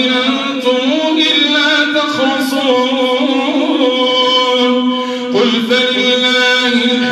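A man's voice chanting Qur'anic recitation in long, melodic held phrases, with a short break for breath about five seconds in.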